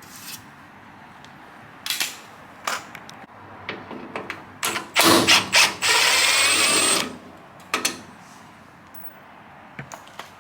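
Riveting and fastening work on an aluminium truck bed skin: scattered clicks and knocks of hand tools, a cluster of loud knocks about five seconds in, then a power tool running with a high whine for about a second before more light clicks.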